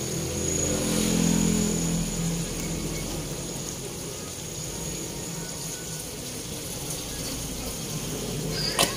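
Isaw (intestines) deep frying in hot oil in a wok: a steady bubbling sizzle. A low pitched sound is heard over the first two seconds, and a single sharp click comes near the end.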